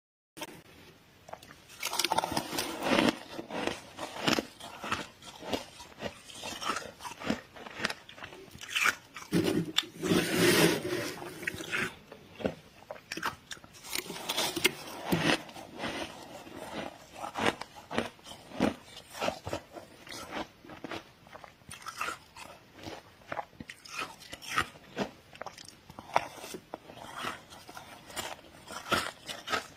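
Freezer frost crunching in a dense, irregular run of crisp crunches and crackles, louder in a few bursts.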